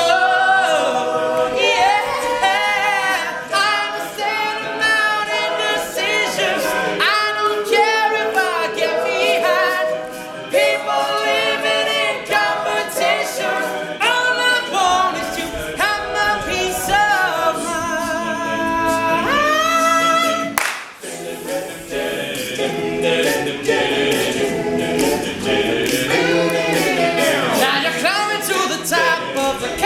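All-male a cappella group singing live: a lead voice over blended backing harmonies with no instruments, with a brief break in the sound about two-thirds of the way through.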